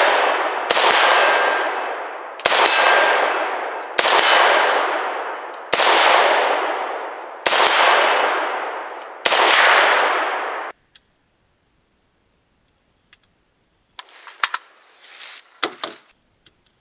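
Arsenal SLR-104FR semi-automatic AK-74-pattern rifle in 5.45x39mm firing six single shots at an even pace, about one every second and three-quarters. Each shot is followed by a long ringing tail. The shots stop abruptly, and a few light clicks follow near the end.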